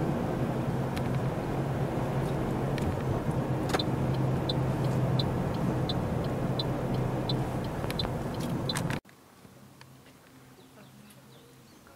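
Car interior noise, with the engine running steadily and the tyres on the road, while a turn indicator ticks at about two clicks a second. The noise cuts off abruptly near the end, leaving faint, quiet outdoor ambience.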